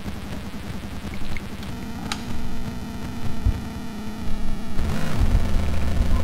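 Benjolin and Fourses analog synthesizers making a noisy, chaotic electronic drone whose character shifts as they are repatched: a steady hum-like tone comes in just before two seconds, with a couple of sharp clicks, and a louder deep low drone takes over at about five seconds.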